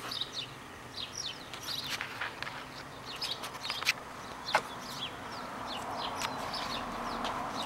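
Birds chirping outdoors, many short high chirps one after another, with a few sharp clicks in the middle and a hiss that builds near the end.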